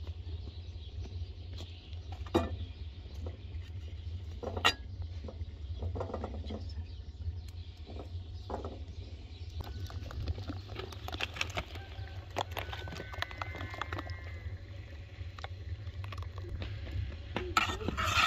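Metal spoon scraping and clinking against an enamel pot and an aluminium pan as butter is scooped out and stirred while it melts, with a few sharp clinks over a steady low rumble. A short chirping call comes about two-thirds of the way through.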